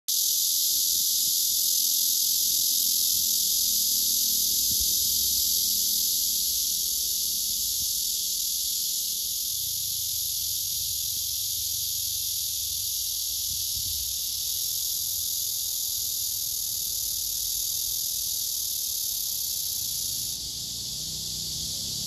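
Blackish cicada (Cryptotympana atrata) song: a male's courtship call, a steady, high, hissing buzz that runs on without a break and drops a little about 20 seconds in.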